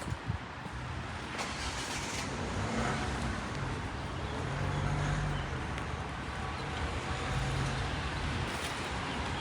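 A car passing on a wet street, its low engine hum swelling to a peak about halfway through and fading again, over a steady hiss of rain.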